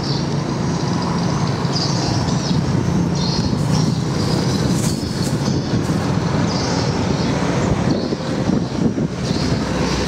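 An engine running steadily at low speed, a constant low rumble.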